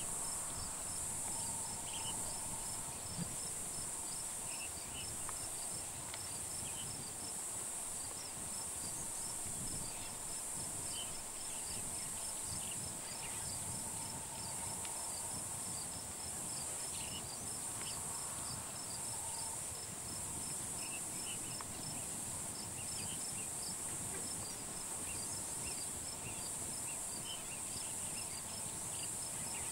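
A steady chorus of insects: a high shrill that swells and fades every couple of seconds, with a faster ticking call running over it and a few scattered chirps.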